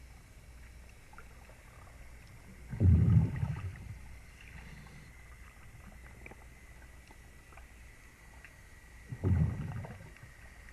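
A scuba diver's exhaled breath bubbling out of the regulator underwater, two low rumbling gushes about six seconds apart, over a faint steady hum and a thin high tone.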